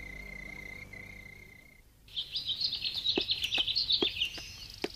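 A steady high insect trill, like crickets at night, for nearly two seconds; after a brief gap, birds chirp in quick repeated high notes.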